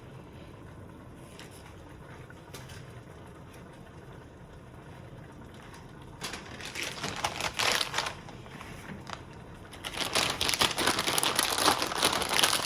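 Food packaging crinkling as it is handled, in two bouts: one starting about six seconds in and lasting a couple of seconds, and a longer one from about ten seconds in.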